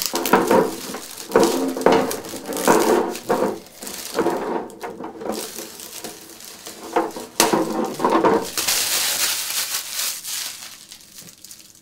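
Thin clear protective film being peeled off a freshly spray-painted RC truck body and handled, crinkling and crackling in uneven bursts, with a denser stretch of rustling about two-thirds of the way through.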